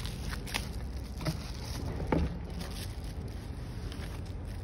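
Bubble wrap and a cardboard box being handled as a wrapped phone screen is slid out, giving a few short crinkles and clicks, the loudest about two seconds in, over a steady low background hum.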